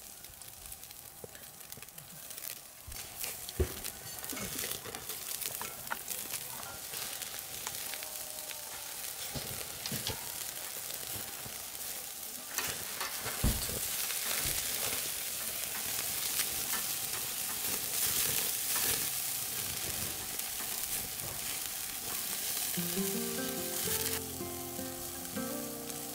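Pork belly sizzling on a wire-mesh grill over charcoal, the fat spitting and crackling in sharp pops; the sizzle grows louder over the first few seconds. Music comes in near the end.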